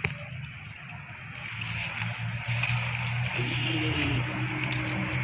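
A motor engine running steadily, growing louder about a second and a half in.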